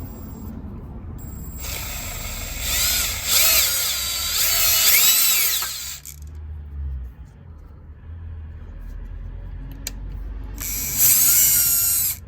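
Power drill boring out a stripped bolt hole in an engine's cylinder head to take a Helicoil thread insert: two spells of drilling, a longer one of about four seconds and a short one near the end, the motor's pitch wavering up and down under load.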